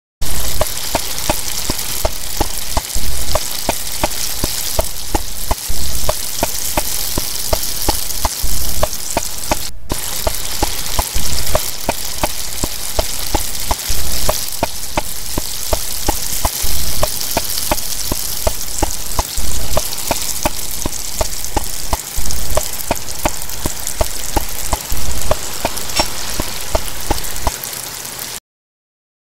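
Food frying in a pan: a loud, steady sizzle with many small pops, starting and stopping abruptly.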